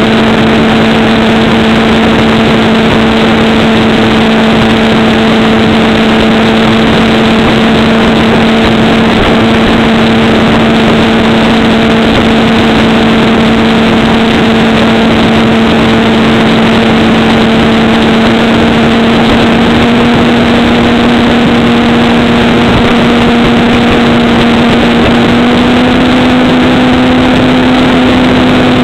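Electric motor and propeller of an FPV model plane running at steady cruise throttle, a steady hum over a loud hiss. The pitch steps up slightly twice in the last third as a little more throttle is added.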